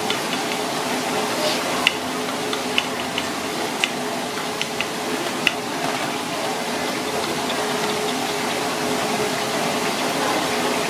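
A spoon stirring a thick, creamy sauce in a ceramic bowl, clicking against the bowl several times in the first half, over a steady background hum.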